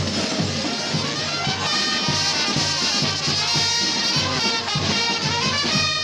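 Brass band playing a Gilles carnival tune over a steady drum beat, about two to three drum strokes a second.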